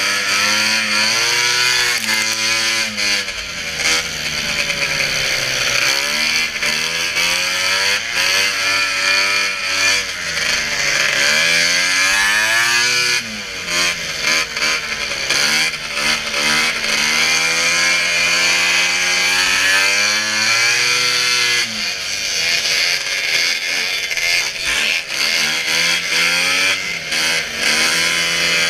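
Racing snowmobile's two-stroke engine running hard, its pitch climbing and dropping again and again as the throttle is worked. A steady hiss runs over it throughout.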